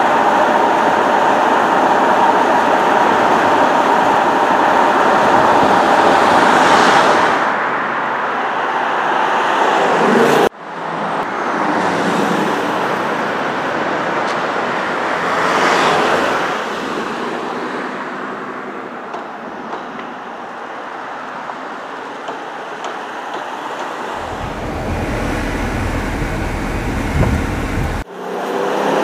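Ford Mustang Mach 1's 5.0-litre all-aluminium V8 through its Active Valve Performance Exhaust, running on the road. The sound cuts off suddenly about a third of the way through. Another drive-by then swells and fades around the middle, and a deep low rumble follows near the end.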